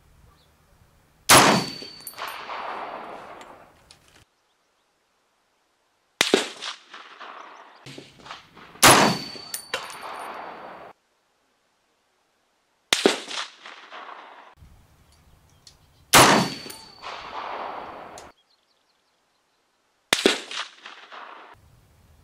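A string of rifle shots from an M1A National Match semi-automatic rifle: about six sharp cracks a few seconds apart, each followed by a long echoing tail.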